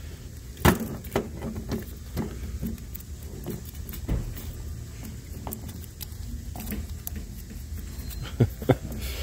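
Steel planetary gearset parts from a failed Ford 8F35 automatic transmission clinking against each other and the metal bench as they are handled: a few sharp metallic clinks a little under a second in and again near the end. The clinks come over a low steady hum. The owner suspects a planetary failure, with the unit shedding loose metal.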